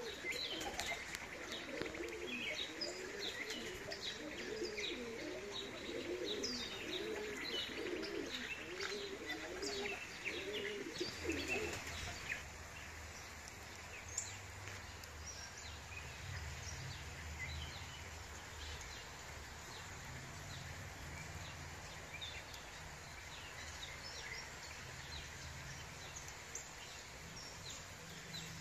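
Pigeons cooing over and over for the first twelve seconds or so, with small birds chirping above them. After that the cooing stops, leaving a faint steady low hum and occasional chirps.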